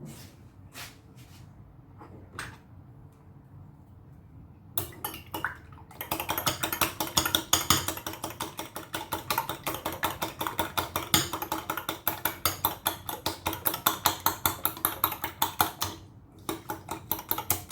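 Fork or whisk beating eggs in a bowl: a fast, even clinking against the bowl at about four to five strokes a second, starting about five seconds in and pausing briefly near the end. A few single knocks come before it.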